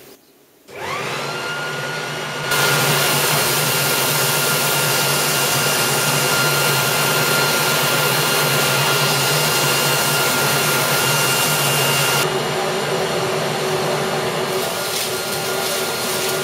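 Electric leaf blower, rigged as a fume extractor, switched on and spinning up with a rising whine, then running steadily. From about two and a half seconds to about twelve seconds a louder hiss lies over it while galvanized steel is cut with a plasma cutter.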